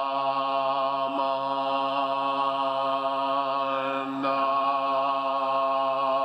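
Buddhist chanting at a temple service: voices held on one steady pitch, continuing without a break, with slight shifts about a second in and about four seconds in.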